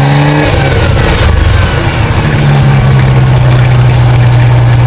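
MerCruiser 4.3-litre V6 sterndrive engine running in gear under a little throttle: its note rises in the first half-second, wavers, then settles into a steady, even run from about halfway. It runs cleanly without popping back through the carburettor, after a carburettor adjustment and new spark plugs.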